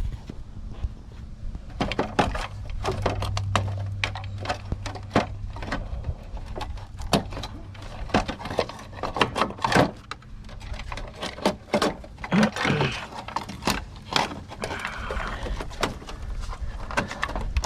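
Scrap metal being dismantled by hand: a long run of sharp metallic knocks, clicks and clanks of tools on metal parts, with a low steady hum for a few seconds near the start.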